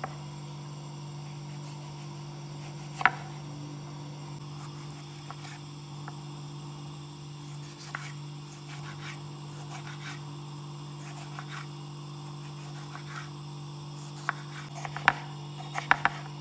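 Knife cutting tomatoes into chunks: faint scattered taps, one sharp knock about three seconds in and a quick cluster of knocks near the end, over a steady low hum.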